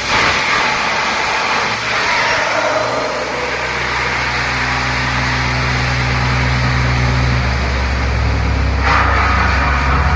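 Borewell drilling rig's diesel engine and air compressor running hard, a steady low drone under a loud rushing hiss of compressed air blowing through the drill pipe. The hiss surges right at the start and again near the end.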